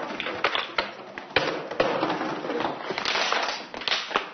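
Empty plastic PET bottles being crushed by hand, a dense, irregular run of sharp crackles and pops of the plastic.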